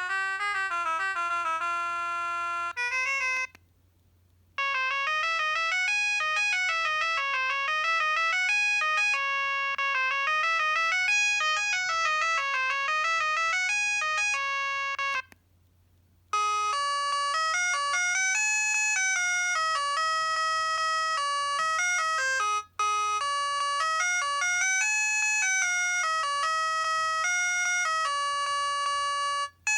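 Preloaded ringtones of a Mobiwire Aponi mobile phone playing one after another: synthesized electronic melodies with chime-like notes. The melodies pause for about a second roughly 3.5 and 15 seconds in, where one ringtone ends and the next begins.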